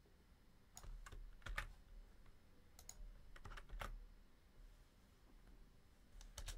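Faint computer keyboard keystrokes in short scattered clusters, typing out code.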